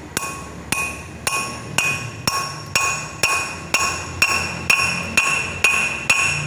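Hammer blows driving a new wheel stud into a brake drum hub, about two strikes a second, a dozen or so in all, each strike ringing with a metallic tone.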